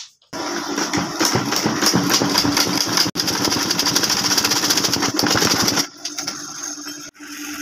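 Sewing machine stitching a leather sandal sole, running with a fast, even rattle of needle strokes. It starts suddenly, breaks off briefly about three seconds in, and runs lighter near the end.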